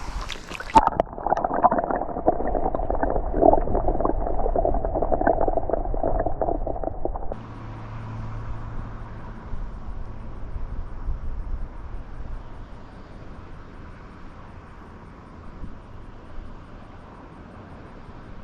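Steady noise of flowing water with wind on the microphone: muffled and crackly for the first seven seconds, then a fainter, even hiss.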